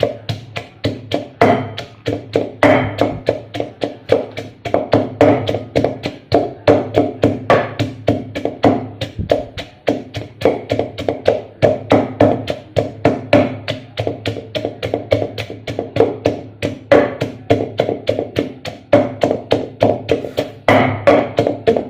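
Pestle pounding in a mortar in quick, even strokes, about four knocks a second, crushing chillies and garlic into chilli paste.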